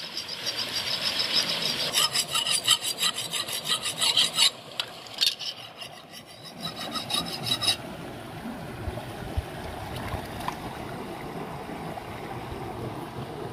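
A knife blade rubbed quickly back and forth on a wet river stone to sharpen it, in rapid rasping strokes that stop about seven to eight seconds in. After that, only the steady rush of the river's flowing water.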